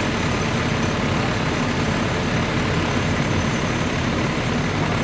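An engine idling steadily, a constant low-pitched running with no changes in speed.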